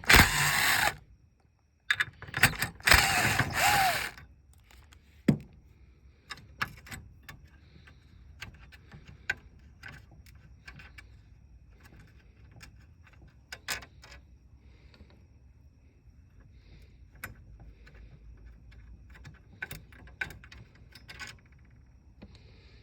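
Socket ratchet clicking in two quick bursts in the first few seconds while driving hinge screws on a dishwasher door, followed by scattered light clicks and taps of metal parts being handled.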